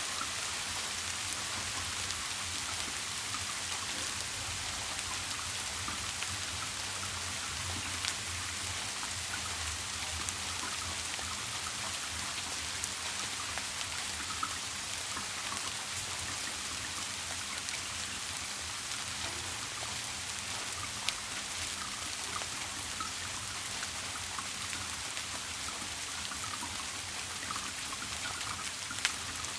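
Steady rain falling, an even hiss of many small drops, with a few sharper single drop ticks standing out now and then.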